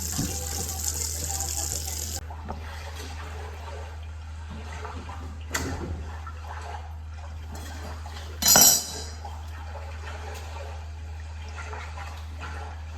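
Kitchen tap running, then shut off abruptly about two seconds in. Later a single knock and, near the middle, a short loud burst of noise, over a steady low hum.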